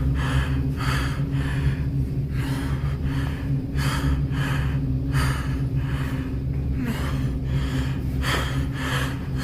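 A person breathing heavily and quickly in fright, loud breaths in and out about two a second, over a steady low hum.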